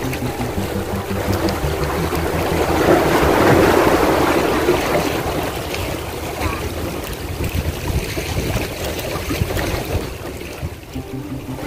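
A motor running steadily, with wind and water noise over it.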